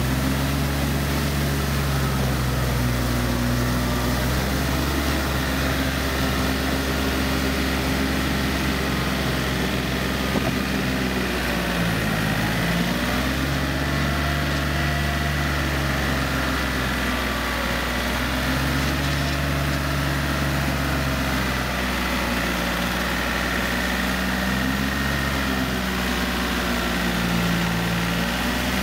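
Yanmar EF393T four-wheel tractor's diesel engine running steadily under load as it pulls a rear rotary tiller through a flooded rice paddy. The engine note dips briefly about twelve seconds in, then recovers.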